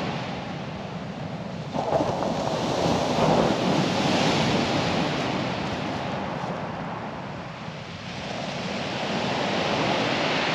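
Surf breaking on a shingle beach, a steady wash that swells about two seconds in and again near the end.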